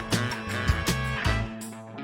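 Background music with guitar over a steady beat; the bass and drums drop out about one and a half seconds in.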